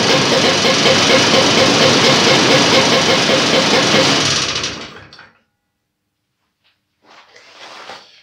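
Ockelbo 600's two-stroke engine running steadily on its first start after new crankcase seals on both the variator and ignition sides, then dying away and stopping about five seconds in. A few faint knocks follow near the end.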